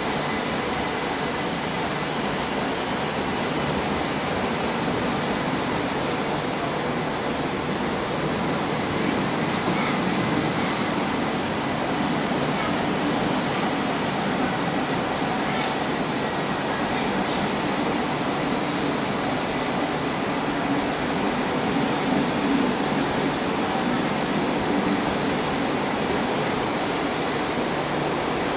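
Passenger train coaches rolling past along the platform as the train departs, a steady noise of wheels on rails that holds at an even level throughout.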